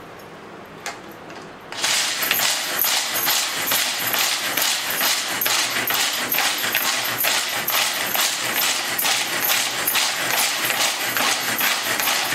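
Pigeon pull-cord hand chopper grinding peanuts: the cord is pulled again and again, spinning the blades through the nuts inside the plastic bowl. It starts about two seconds in and keeps a fast, steady rhythm of pulls.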